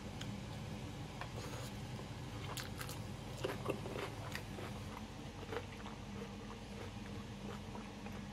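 Someone biting and chewing crispy, crunchy food, likely air-fried salmon skin, with irregular crunches that are thickest a few seconds in. A steady low hum runs underneath.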